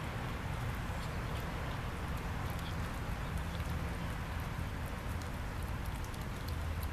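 Kittens chewing and lapping canned tuna from a plate: many quick, small wet clicks and smacks over a steady low background hum.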